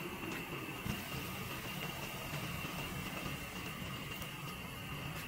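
A glass pot lid is lifted off a cooking pot with one light clink about a second in, over a steady low hum.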